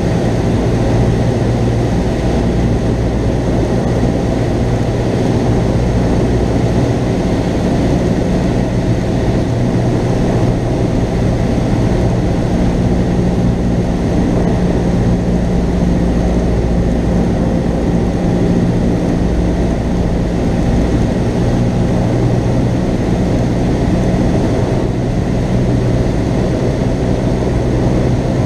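Cessna 172N's four-cylinder Lycoming engine and propeller droning steadily in cruise flight, heard from inside the cabin.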